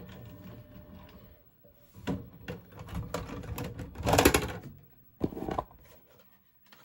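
Handling noise near the TV and tape player: a run of small clicks and knocks, a louder rattling clatter about four seconds in, and a shorter clatter near five and a half seconds.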